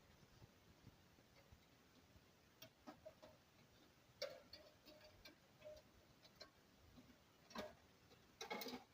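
Faint, irregular small clicks and taps in a quiet room, a few with a short ring after them, the most distinct about four seconds in and a quick cluster near the end.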